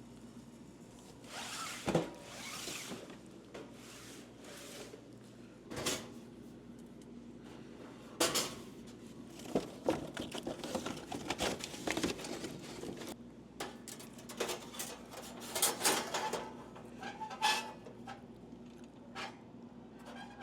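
Snack packets rustling and plastic clicking and knocking as items are handled and loaded into a vending machine, in irregular bursts over a faint steady hum.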